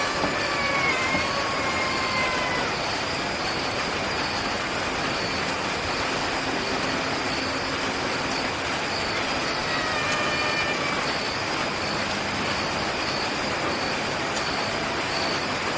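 Steady rushing background noise, like traffic, with a faint high tone pulsing in short dashes and a few faint wavering whistle-like glides near the start and about ten seconds in.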